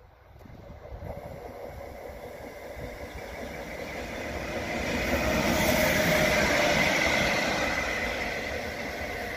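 A pair of coupled Bombardier TRAXX electric locomotives approaching and passing at speed. Wheels rumble on the rails under a steady whine, and the sound builds to a peak about six seconds in, then eases as they pull away.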